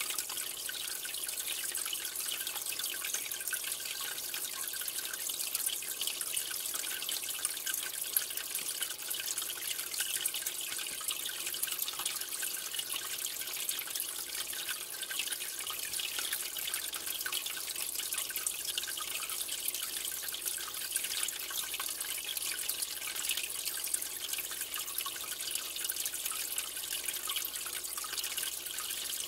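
Aquarium water trickling and bubbling steadily, a fine patter of small drips and bursting bubbles.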